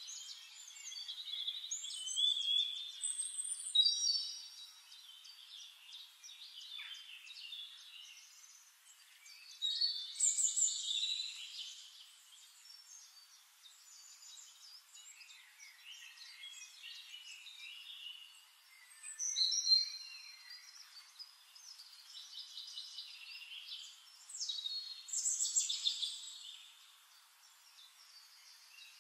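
Several small birds singing and chirping together, a mix of high trills, warbles and whistled notes, swelling louder several times.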